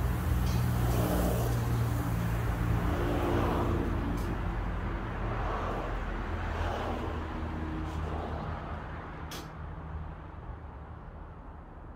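A motor vehicle's engine running as a low steady hum, growing steadily fainter, with a sharp click about four seconds in and another about nine seconds in.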